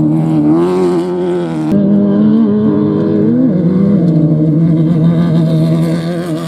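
Off-road race vehicle engine running hard, its pitch wavering and stepping up and down with throttle and gear changes. The sound changes abruptly about 1.7 seconds in, as from a cut to another vehicle.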